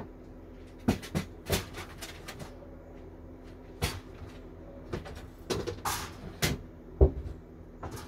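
Wooden boards and sticks being shifted by hand, knocking and scraping against each other and a plywood wall in a series of irregular knocks, the loudest about seven seconds in.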